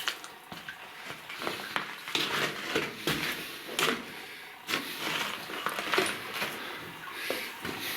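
Footsteps and scuffing on the wet, rocky floor of a mine tunnel, an irregular run of steps.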